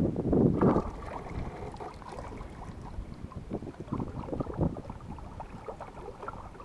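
Wind and water noise on the camera microphone of a jon boat moving across a lake, with a loud gust in the first second and small irregular knocks after.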